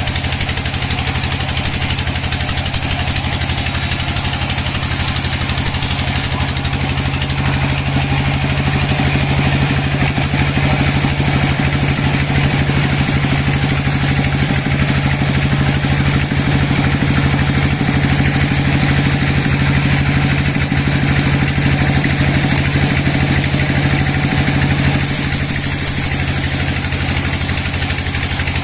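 Sawmill engine running with a steady drone. From about six seconds in until near the end, the sound grows a little louder and its tone shifts, then it settles back.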